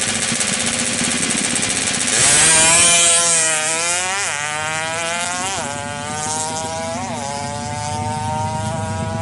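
Yamaha F1ZR two-stroke single-cylinder engine, bored to 116 cc and on its stock carburettor and exhaust, running at high revs. About two seconds in it gets louder and the revs fall away, then there are three quick throttle blips, and the note climbs slowly near the end.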